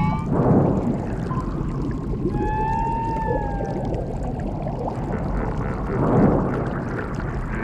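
Underwater ambience sound effect: a steady low rumble of water, with a whoosh just after the start and another about six seconds in. A single drawn-out, whale-like call comes a little after two seconds.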